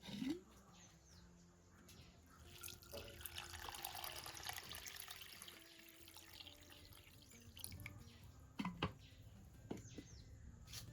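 Water running and splashing for a few seconds, with a short rising squeak right at the start and a couple of sharp knocks near the end.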